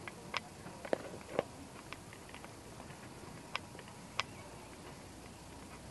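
Faint footsteps tapping on glass stair treads: a few light clicks about half a second apart, then two more spaced out, over a low steady hiss.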